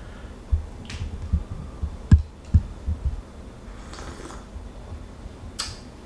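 A person sipping hot coffee from a cup: a few short, hissy slurps, with soft low knocks and a sharp click from handling the cup.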